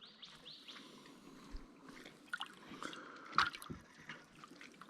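Faint water dripping and splashing with a few light knocks, as live bait is scooped into a bait tank.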